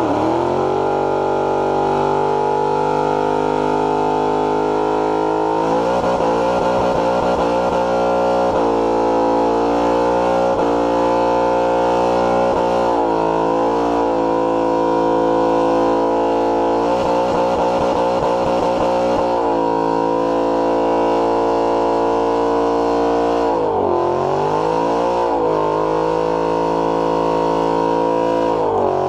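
Ford Mustang GT's 5.0 V8 held at high revs in a burnout, the rear tyres spinning. The revs dip and climb back twice, about 24 seconds in and near the end.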